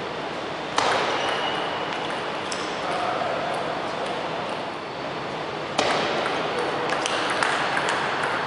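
Table tennis ball clicking as it bounces on the table and is struck by paddles, the clicks coming quicker near the end as a rally starts, over a steady murmur of spectators' voices in a large hall.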